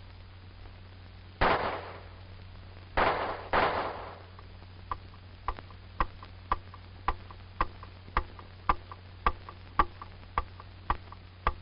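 Three pistol shots echoing in an indoor range: one shot, then two more about half a second apart. They are followed by steady, evenly spaced ticking about twice a second.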